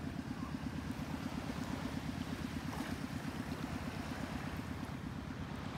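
A boat's engine running steadily, with a low, even throb.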